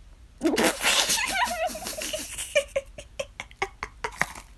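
A person laughing: a loud burst about half a second in with a wavering pitch, trailing off into a string of short, fading pulses.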